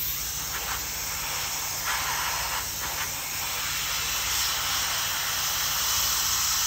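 Hot-air plastic welding gun running, a steady hiss of compressed air blowing through its heated nozzle, with a faint steady low hum underneath.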